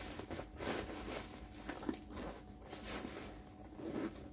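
Clear plastic packing rustling and crinkling in irregular bursts as it is handled and pushed into a handbag.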